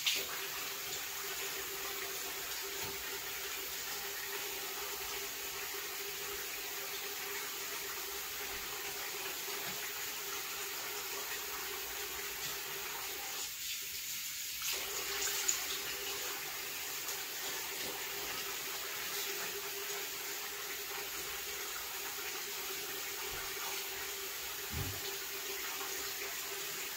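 Bathroom sink tap running steadily into the basin while someone washes at it; the flow's sound briefly changes about halfway through.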